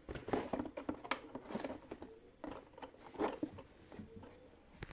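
Handling noise from unboxing: an irregular run of small clicks, taps and crinkles as plastic parts and packaging are handled.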